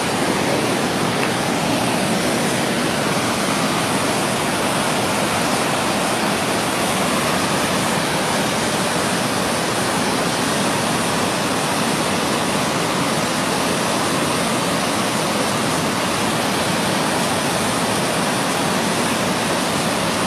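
River rapids rushing over boulders: a steady, unbroken rush of white water.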